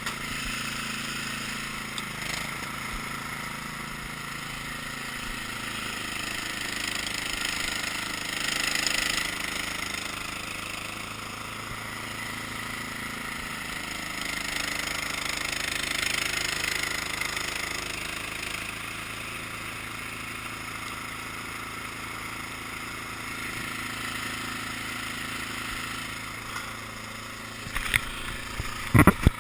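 Cub Cadet's small engine running steadily, its sound swelling and easing a couple of times, with a few sharp knocks near the end.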